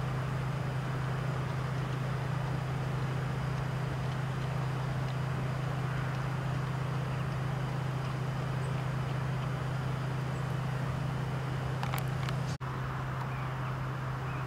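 A steady low hum over an even background hiss, with a couple of faint clicks and an instant's dropout near the end.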